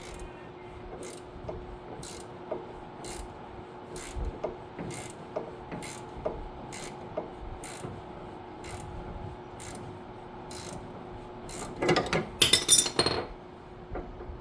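Hand tools working a sway bar end link's ball-stud nut loose: a sharp metal click about once a second as the wrench is swung, then a burst of loud metal clanks near the end.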